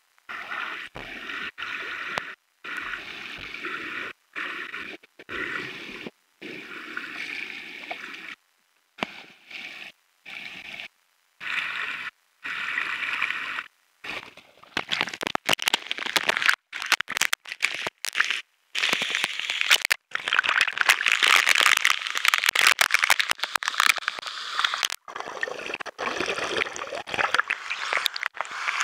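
Waterfall pouring into a pool: a steady rush of water that grows louder about halfway through, cut by many brief dropouts to silence.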